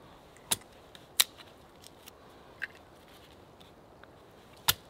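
Dry wood cracking sharply as a knife splits small sticks into thin kindling: four short cracks at uneven intervals, the loudest about a second in.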